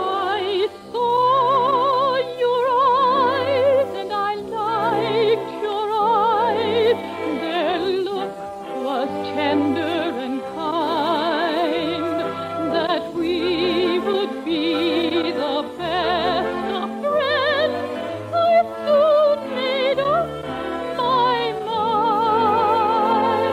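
Operetta singing with wide vibrato over a full orchestra. It sounds narrow and dull, with nothing in the upper treble, as an early-1950s radio transcription does.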